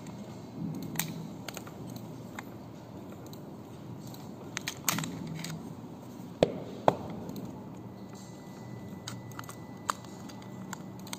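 Metal parts of a tubular door knob lock being handled and pulled apart: scattered sharp clicks and clinks, the loudest two close together about six and a half seconds in.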